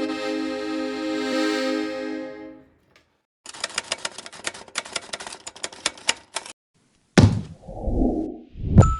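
A Farinelli piano accordion with Italian Binci reeds holds a rich chord that fades out within the first three seconds. Then comes a few seconds of rapid, irregular clicking, followed by two loud low thumps with a rumble.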